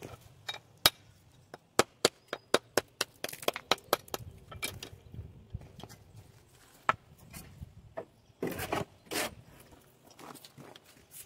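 Masonry work on stone: a run of sharp, irregular knocks and taps, then two short scrapes about eight and nine seconds in.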